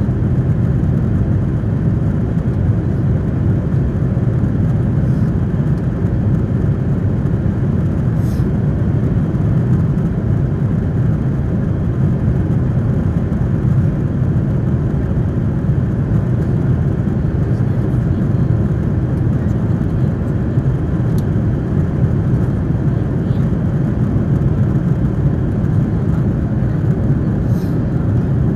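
Steady drone of a Korean Air airliner's jet engines and airflow heard inside the passenger cabin, a deep, even rumble with no change in pitch.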